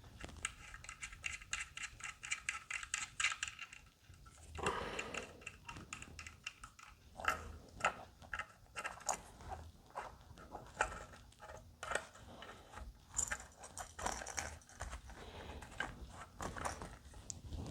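Irregular small clicks and light metallic rattles from handling guitar hardware: pickups, screws and wiring being worked on by hand.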